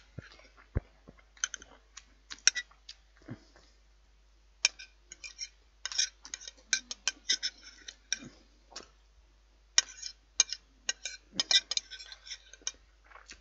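Metal knife and fork clinking and scraping against a china plate while cutting meat, in irregular clusters of quick sharp clicks with short pauses between them.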